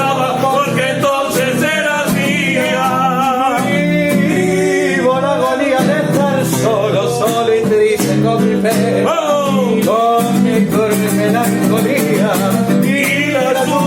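Male voice singing a Spanish-language Latin song with plucked guitar accompaniment.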